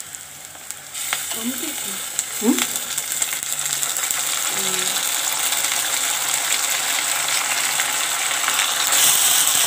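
Hot oil sizzling in a frying pan as a wet ground ginger-spice paste is scraped in with a wooden spatula. The sizzle starts about a second in and grows louder, stepping up again near the end, with a few light scrapes and taps of the spatula.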